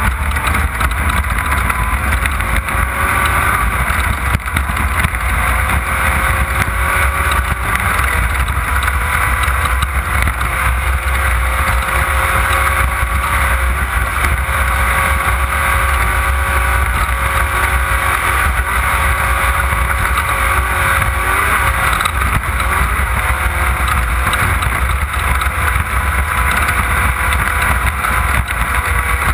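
Off-road race car running at speed with a steady engine drone, buried under a heavy low rumble of wind and rough-ground noise on the onboard microphone.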